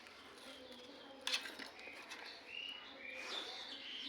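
Small birds chirping in short, high calls, with one sharp click about a second in.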